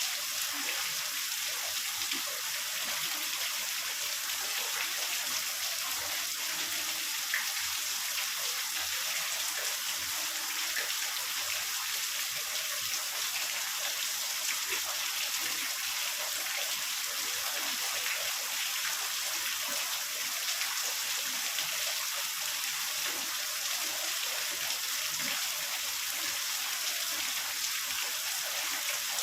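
Heavy rain falling steadily: an even, high hiss with scattered drop ticks and no thunder.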